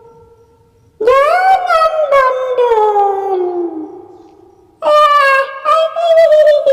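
Two long howls, each a single drawn-out cry: the first rises and then slides slowly down in pitch, and the second, about two seconds later, holds nearly level with a short break in the middle.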